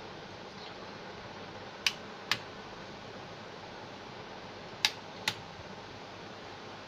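Two pairs of sharp clicks, the clicks in each pair about half a second apart, over a steady hiss.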